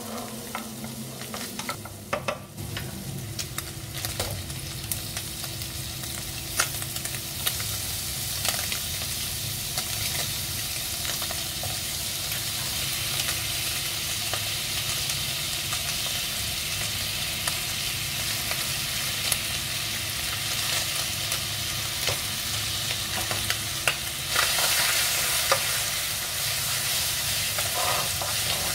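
Diced Spam and kimchi sizzling in a frying pan as a wooden spatula stirs and scrapes them, with scattered clicks of the spatula against the pan. The sizzle grows louder near the end.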